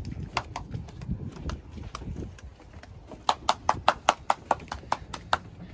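A series of sharp knocks, scattered at first, then a quick run of about five a second starting about three seconds in.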